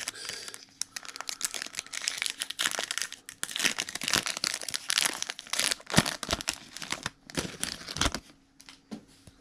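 Foil trading-card pack being torn open and crinkled in the hands: a dense crackle of foil wrapper with sharp snaps, the loudest snap about six seconds in, dying away near the end.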